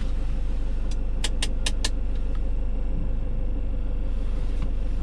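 Peugeot Boxer camper van's engine running with a steady low hum, heard from inside the cab. Four sharp clicks come in quick succession about a second in.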